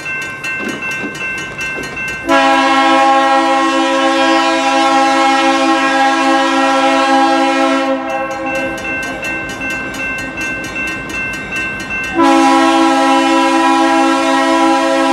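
Diesel locomotive air horn sounding two long blasts as a chord of several notes: the first starts about two seconds in and lasts about six seconds, the second starts about twelve seconds in. Between the blasts, the passing train runs with a rhythmic clicking and faint steady high tones.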